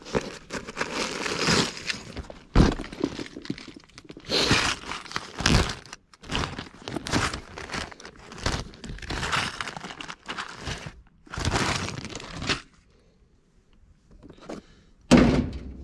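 Rummaging through a zippered tool bag: a run of irregular rustling and clattering handling noise, a pause of about two seconds near the end, then one sharp thud.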